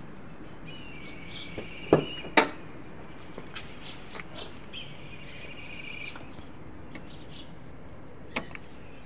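Two sharp clunks about half a second apart, around two seconds in, as a car's bonnet is unlatched and lifted. Birds chirp in short trills in the background, with a few small clicks later on.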